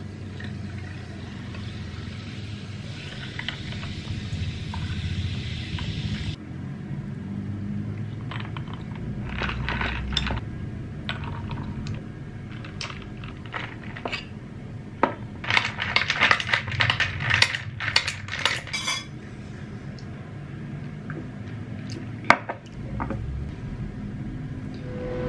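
Dishes and cutlery clinking and clattering: a steady hiss that cuts off about six seconds in, then scattered clinks, a dense run of clatter in the middle, and one sharp knock near the end.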